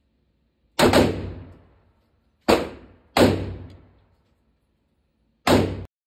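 Gunshots on an indoor range: five sharp reports at uneven spacing, two in quick succession about a second in, then single shots, each ringing off in the enclosed range. The last report cuts off abruptly.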